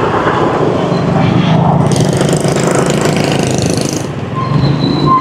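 Motorbike engines and street traffic with a rapid mechanical rattle, and a burst of hiss about two seconds in that lasts about two seconds. A faint thin tone comes in near the end.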